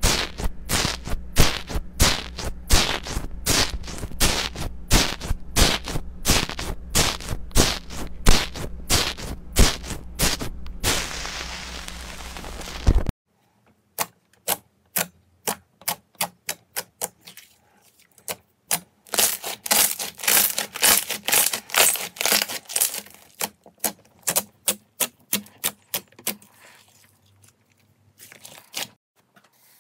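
Slime being worked: foam slime stirred and poked with a stick in a plastic tub, giving a fast, dense crackle of popping bubbles, then, after an abrupt change about 13 s in, clear jelly bubble slime pressed with the fingers, giving sharp pops and clicks in runs with a dense crackling stretch in the middle.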